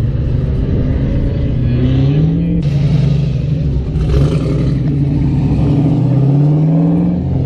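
Car engines accelerating away one after another, each note rising in pitch over a low rumble. The first climb breaks off suddenly about two and a half seconds in, and a second long climb runs from about four and a half seconds until near the end.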